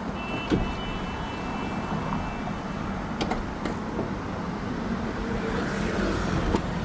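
Steady vehicle-like running noise with a few sharp clicks spread through it.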